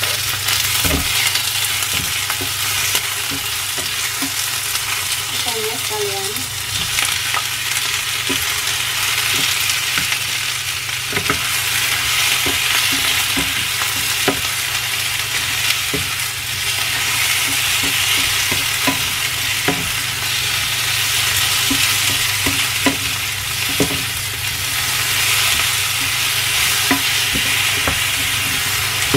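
Tomato, bell pepper and prawns sizzling as they stir-fry in a non-stick frying pan, with a spatula scraping and tapping against the pan again and again.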